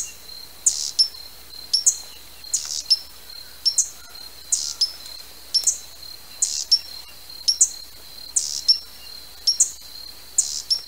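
Hummingbird giving sharp, high chip calls, about one and a half a second and often in pairs, over a steady thin high-pitched tone.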